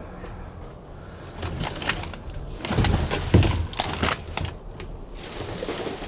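Rummaging through dumpster trash: a run of rustling and clattering starting about a second in, with a few dull knocks in the middle, then fading to lighter rustling.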